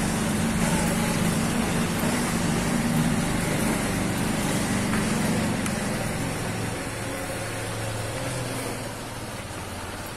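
Motorcycle engine running steadily at low speed, with rushing road and wind noise. It grows quieter about nine seconds in.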